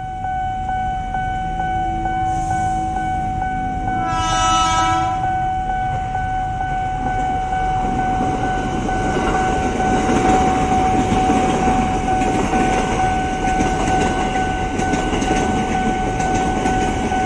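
Level-crossing warning bell ringing steadily as a KRL Commuter Line electric train approaches. The train sounds its horn once, briefly, about four seconds in. From about eight seconds on it rumbles past close by, with wheels clattering on the rails.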